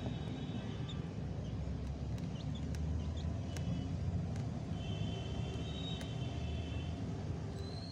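Steady low rumble of road traffic. A high, even-pitched tone sounds for about two seconds after the middle, and a few faint short chirps come earlier.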